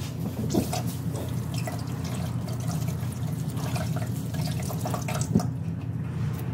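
Water running from a tap into a sink, with small clinks and splashes, over a steady low hum.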